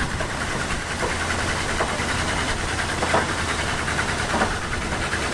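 A 1977 Dodge D150 Adventurer's engine idling steadily.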